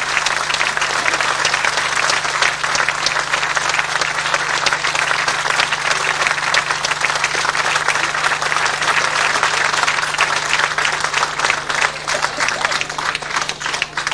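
Audience applauding: a dense, sustained round of clapping that thins into more scattered claps near the end.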